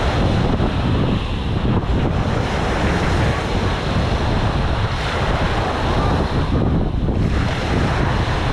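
Small waves breaking and washing up the sand, with wind buffeting the microphone in a steady low rumble.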